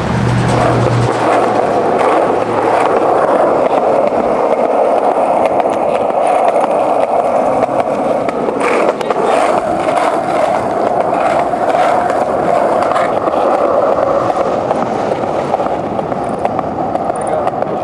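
Skateboard wheels rolling steadily over a concrete sidewalk. A run of short clacks in the middle comes from the wheels crossing the sidewalk's seams.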